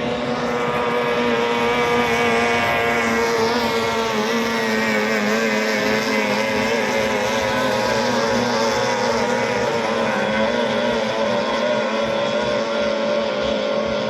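18 hp outboard motors on racing speedboats running at high revs, a loud, steady engine drone.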